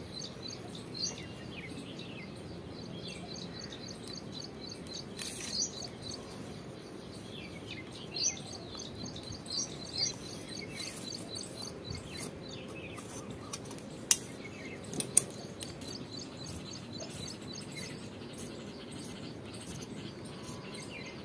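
Small birds chirping repeatedly in the background over soft handling of folded cotton cloth and a metal ruler, with a few sharp clicks about two-thirds of the way through. Near the end, tailoring scissors cut through the folded fabric.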